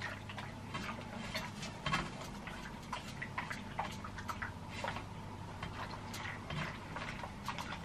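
Ironing a pillowcase: a clothes iron moves over the fabric and ironing board with many small, irregular clicks and taps, over a low steady hum.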